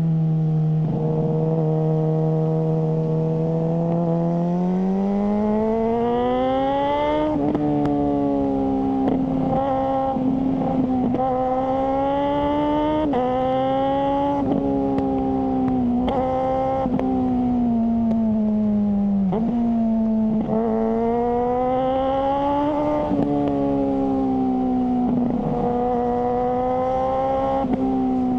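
Suzuki GSR600's inline-four engine through a GPR Ghost aftermarket exhaust, running under way: the note holds low at first, climbs steadily from about five seconds in, then rises and drops again and again with throttle and gear changes.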